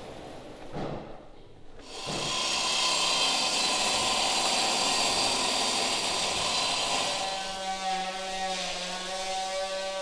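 Light knocks, then from about two seconds in a Hitachi handheld circular saw cutting along a thick timber plank, a loud steady run. Near the end it gives way to a steadier, pitched motor hum from a power tool.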